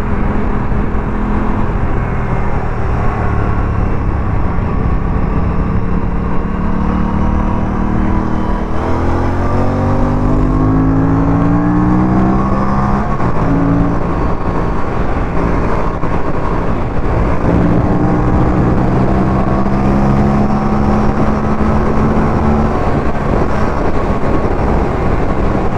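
Aprilia RS 457's parallel-twin engine under hard riding on a track, its pitch climbing and dropping with throttle and gear changes, over a steady rush of noise. About nine seconds in the pitch falls sharply, then climbs for several seconds.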